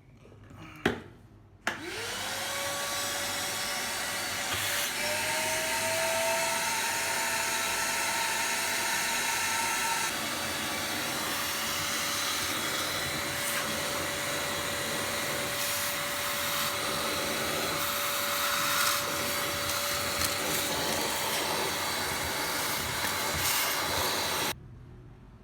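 Ozito 1250 W, 20-litre vacuum cleaner switched on with a click, its motor whining up to speed and then running steadily for over twenty seconds before it stops suddenly near the end.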